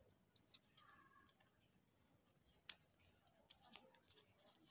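Small scissors faintly snipping glitter foam sheet: a few scattered clicks, with one sharper click about two and a half seconds in.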